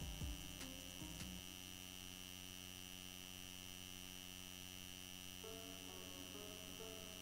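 Quiet room tone with a steady electrical hum and a thin high whine, and a few faint clicks in the first second. Faint background music with a simple stepping melody comes in about five seconds in.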